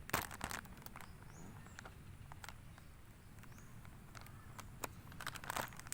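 A heated field-ration meal pouch being handled and torn open: crinkling, rustling packaging in short bursts, one just after the start and another about five seconds in.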